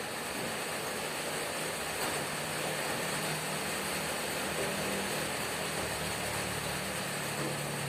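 Hammering rain on a corrugated tin roof: a dense, steady hiss of drops striking the metal, with a faint low hum beneath it.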